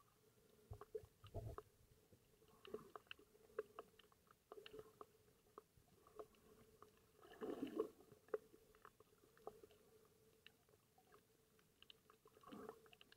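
Faint underwater ambience: scattered sharp clicks and crackles over a faint steady hum, with a few short muffled swishes of water, about 1.5, 7.5 and 12.5 seconds in.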